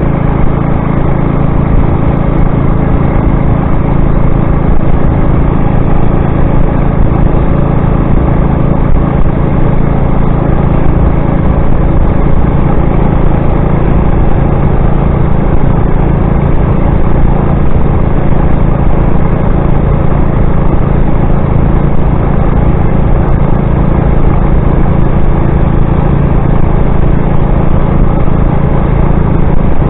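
Motorized bicycle's small engine running at a steady, unchanging pitch while riding.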